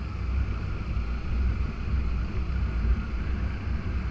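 Wind rushing over the microphone of a moving motorcycle, a steady low rumble with the bike's engine and road noise underneath.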